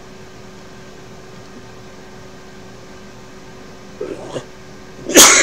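Steady low room hum with a faint constant tone, then near the end one short, loud, breathy vocal burst from the man at the desk, a cough-like sound.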